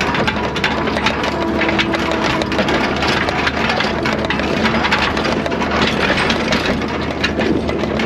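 Skid steer engine running steadily as the machine drives, with constant irregular rattling and clanking from the machine and the bale carrier hitched to its front.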